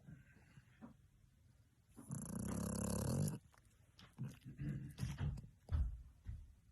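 A dog snoring in its sleep: one long, loud snore about two seconds in, then a run of short, uneven snorts.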